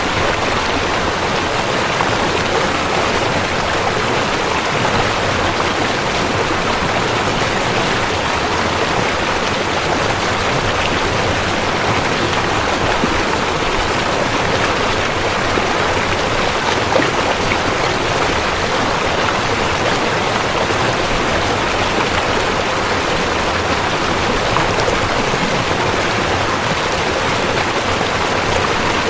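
River water flowing and rushing: a steady, even wash of moving water that does not change.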